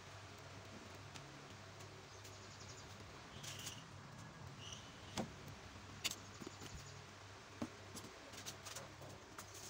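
Faint scattered taps and clicks of a sandal sole and heel piece being handled and pressed together on a workbench, over a low steady hum.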